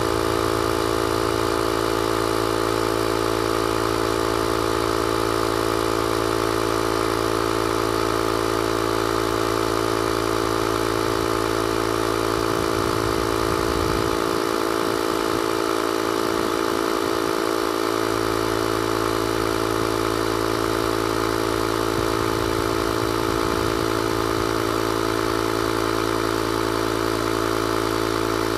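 Small 12-volt piston air compressor built into a portable jump starter, running steadily as it pumps up a car tire through a hose screwed onto the valve. It makes a constant motor drone.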